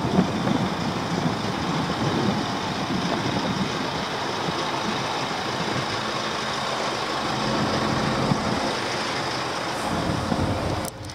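Steady wind noise on the microphone, an even rushing hiss with some low rumble; it dips briefly near the end.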